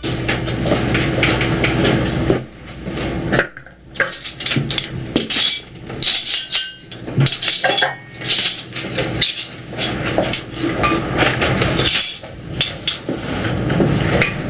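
Cutlery clinking and scraping against dishes in an irregular clatter of short knocks, as at a meal.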